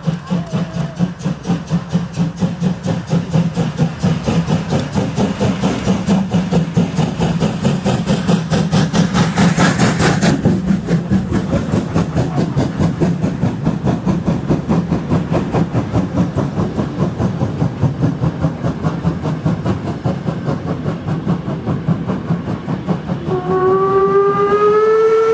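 BR 50 two-cylinder steam locomotive working hard with a train, its exhaust beating in a fast, even rhythm that is loudest about ten seconds in as it passes directly below. Near the end its steam whistle sounds, one long chord that rises slightly in pitch as it opens.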